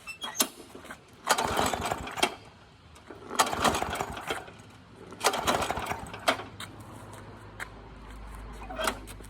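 Petrol lawn mower pull-started three times, each pull a rattling burst of about a second as the engine turns over, with no steady running after: the mower will not start.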